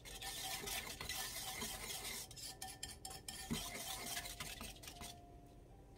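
Acorn starch being mixed into water by hand in a metal bowl: fingers swishing through the thin slurry and rubbing against the bowl in small, irregular scrapes, the starch dissolving smoothly without lumps. The stirring dies down about five seconds in.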